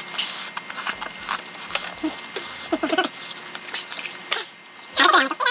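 Table-side clatter: sharp clicks of a spoon and chopsticks against the stew pot and dishes. Near the end, soju glugs out of a glass bottle into a shot glass in a short run of gurgles.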